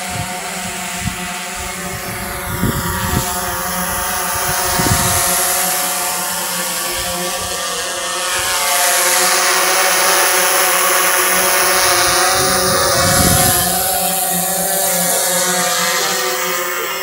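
The 75 mm eight-blade electric ducted fan of an HSD Viper RC jet makes a turbine-like rush as it passes at speed. It swells about five seconds in and more strongly for several seconds past the middle, with the pitch sweeping as it goes by. Under it runs the steady whine of a nearby quadcopter drone's motors, with wind buffeting the microphone.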